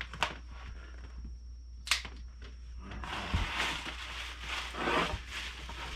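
Cardboard shipping tube being opened: a few scrapes and sharp clicks, then from about three seconds in a continuous crinkling rustle as plastic wrapping is pulled out of the tube.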